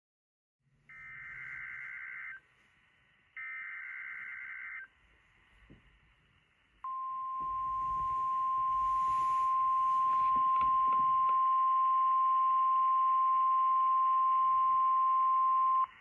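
NOAA Weather Radio Emergency Alert System alert: two bursts of warbling SAME digital header tones, each about a second and a half long, then about seven seconds in the steady single-pitch 1050 Hz warning alarm tone. The alarm tone runs about nine seconds and cuts off sharply. It is heard over faint radio static and announces a severe thunderstorm warning.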